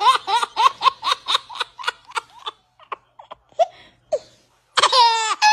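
A person laughing hard in rapid high-pitched bursts, about four or five a second, trailing off into scattered chuckles after about two and a half seconds. Near the end a loud, high-pitched call with falling pitch starts abruptly.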